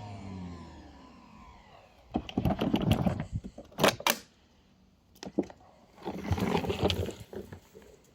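Nilfisk Buddy II wet/dry vacuum's 1250 W motor winding down after switch-off, falling in pitch and fading out over the first second or so. Then a run of irregular clatters and knocks in several short clusters, the sharpest about four seconds in.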